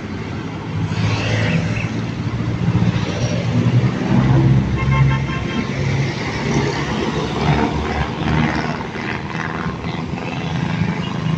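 Toyota police van driving slowly past close by, its engine loudest as it draws level. It gives a short horn toot, about a second long, near the middle.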